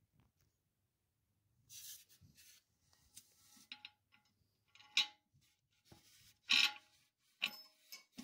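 A brass tank bolt with a rubber washer is worked through the bolt hole of a porcelain toilet tank by a gloved hand: scattered rubbing and scraping with a few sharp clicks. The loudest clicks and scrapes come about five seconds in and again a little later.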